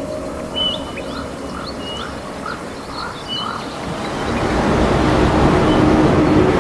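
Birds chirping in short repeated calls, joined from about four seconds in by a swelling hiss of rain and a steady low hum.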